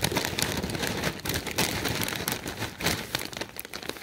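Hard twist pretzels rattling and clicking against each other while a plastic snack bag crinkles, a dense, steady patter of small crackles.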